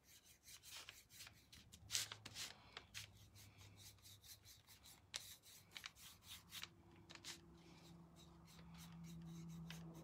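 Faint scratchy strokes of a small paintbrush brushing black paint onto a wooden cutout, one stroke after another.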